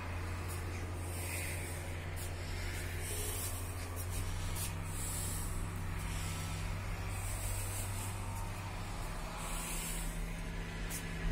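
Wind blowing over the phone's microphone outdoors: a steady low rumble with hiss that rises and falls every couple of seconds.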